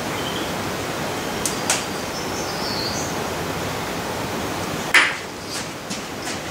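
A spanner on the metal lathe's stand as its levelling is adjusted: two light metallic clicks, then one sharp clink about five seconds in, over a steady hiss.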